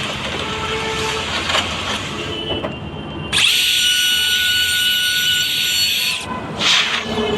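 Electric power tool, most likely a drill, working on wood. A rough, noisy stretch comes first; about three seconds in the motor rises to a steady high whine, which cuts off about six seconds in and is followed by a short burst of noise.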